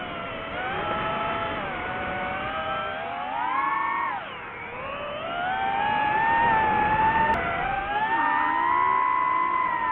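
Radio-controlled drift car's electric motor whining, its pitch rising and falling with the throttle: it revs up, drops sharply just after four seconds in, then climbs again and holds high near the end.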